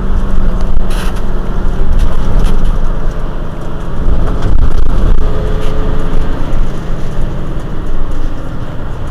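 Mercedes-Benz Citaro C2 city bus's OM936 six-cylinder diesel idling steadily, heard from just behind its rear engine bay.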